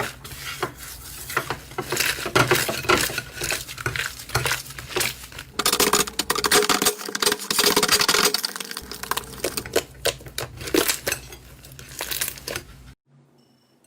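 Slime being squished and pressed by hand: a dense run of small crackling pops and clicks, thickest a little past the middle, that stops abruptly about a second before the end.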